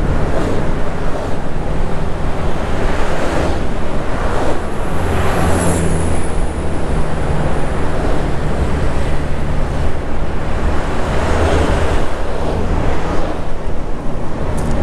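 Bus engine running steadily as the bus drives along, mixed with heavy wind rushing over the microphone.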